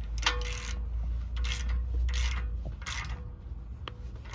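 Ratchet wrench with a 19 mm socket running a castle nut down onto a tie rod end stud. It makes a run of short, raspy ratcheting strokes, about one every three-quarters of a second.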